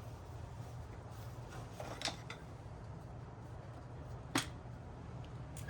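A few sharp clicks of tools and bolts being handled while bolts are taken out of a motorcycle's body panels, the loudest about four seconds in, over a low steady hum.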